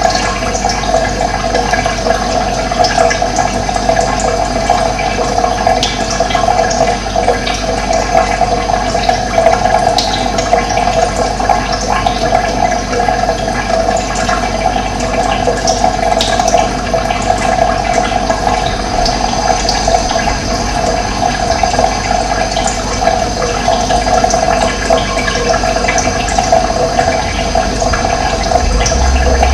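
Running water flowing steadily in a continuous rush, with a few faint, short high bird chirps over it.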